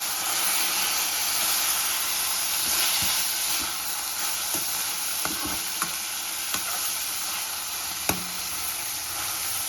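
Rai saag (mustard greens) frying in a pan with a steady sizzle. A few light clicks of a utensil stirring against the pan.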